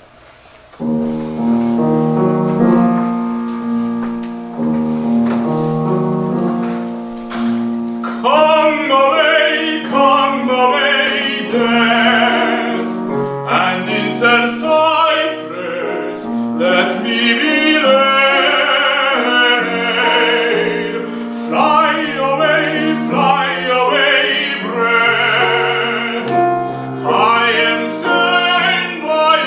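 A piano plays a quiet introduction, then a classically trained tenor enters about eight seconds in, singing an art song with vibrato over the piano accompaniment.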